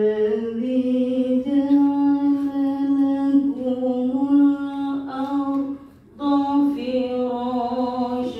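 A single voice reciting the Quran in a slow melodic chant, holding long drawn-out notes, with a breath pause about six seconds in. The voice is hoarse from coughing, as the reciter says.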